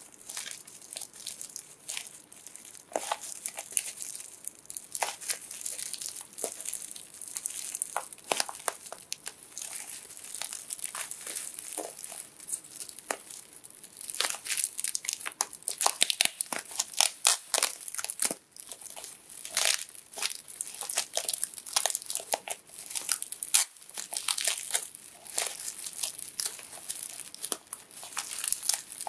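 Plastic bubble wrap crinkling and crackling as hands handle and unwrap it, with rapid sharp crackles that get busier and louder about halfway through.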